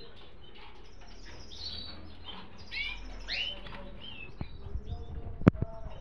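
Budgerigars chirping in a cage: a run of short chirps that bend up and down in pitch, busiest about three seconds in. A few sharp clicks near the end, one of them the loudest sound.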